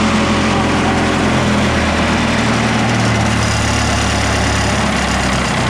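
A large wood chipper's engine running steadily at idle, with a low, even drone.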